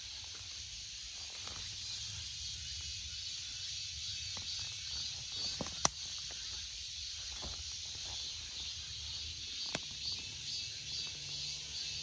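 A steady high hiss of distant cicadas droning, over a low rumble of wind or handling on the microphone. A sharp click comes just before the middle, and a smaller one about two-thirds of the way through.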